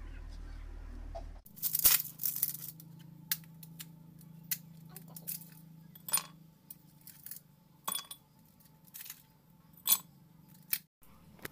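Ice cubes being dropped one at a time into a drinking glass, each landing with a sharp clink, about eight in all, after a burst of crackling as the cubes are broken loose from a plastic ice tray. Before that, a steady low hum for about a second and a half.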